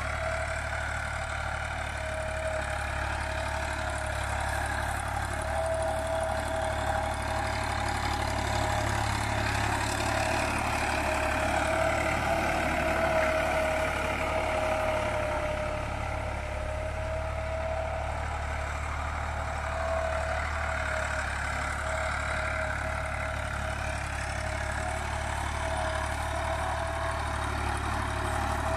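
Diesel engine of a blue Ford farm tractor running steadily under load as it pulls a cultivator and plank leveler through a field, with a steady whine over its low drone.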